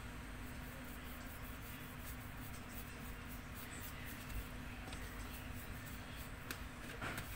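Faint scratchy strokes of a paintbrush dabbing and dragging wet paint across paper, over a steady low hum.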